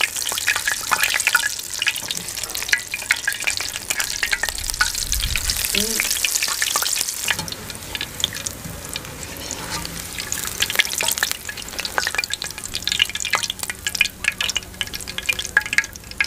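Egg-coated eggplant slices deep-frying in hot oil in an aluminium karahi: steady sizzling and crackling, dense with sharp pops, easing a little after about seven seconds. A wire skimmer stirs the slices and clinks against the pan as it lifts them out.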